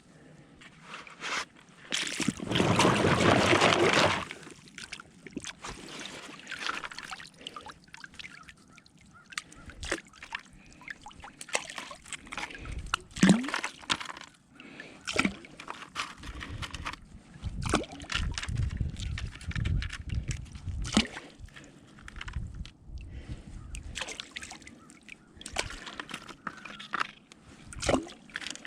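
Water sloshing and splashing as a sifting screen full of river gravel is washed and shaken, with a loud rush of water about two seconds in. Small stones click and rattle against each other throughout.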